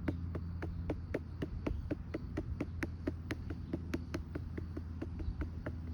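Rapid, even patting on the back of a RealCare infant-simulator doll, about six pats a second, to bring up its burp. A steady low hum runs underneath.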